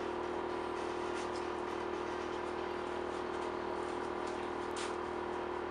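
Steady mechanical drone with a constant hum, with a few faint light ticks now and then.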